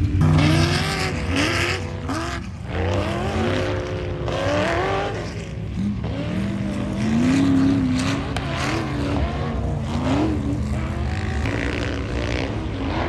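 Dune vehicles' engines revving hard as they climb a sand hill, their pitch rising and falling again and again, with several engines overlapping.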